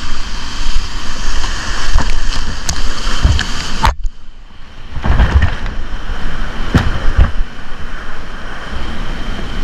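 Whitewater rapids rushing loudly, with repeated splashes and heavy thumps of water. About four seconds in the sound turns suddenly muffled for about a second before the rush returns.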